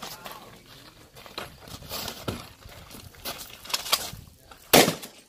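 Scattered clicks and knocks of footsteps and gun handling, then a single loud shotgun shot about a second before the end.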